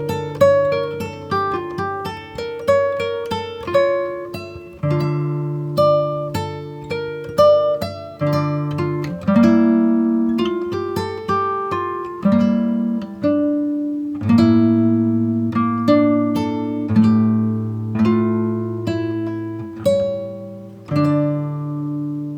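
Instrumental ringtone tune on a plucked string instrument: a quick melody of sharply plucked, decaying notes over held bass notes.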